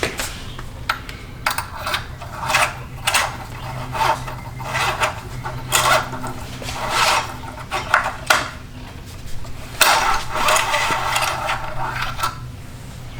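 Irregular rubbing and scraping handling noises, short bursts scattered throughout with a longer stretch of scraping about ten seconds in, over a steady low hum.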